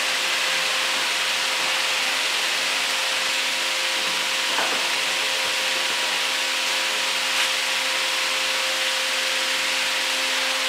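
Steady hiss with a faint steady hum running under it, like workshop machinery running, unchanged throughout.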